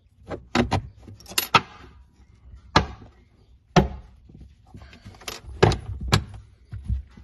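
Steel bolt and washer clinking against the metal base plate of a folding seat as they are set into a slotted hole: a string of sharp metallic clicks and taps, the loudest two about three and four seconds in.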